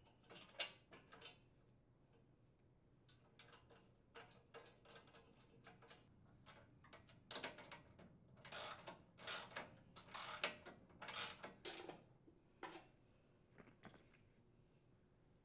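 Nuts being threaded and tightened onto bolts through a steel housing with a socket wrench. Faint small clicks and metal rattles, then a run of about half a dozen short wrench strokes between about 7 and 12 seconds in.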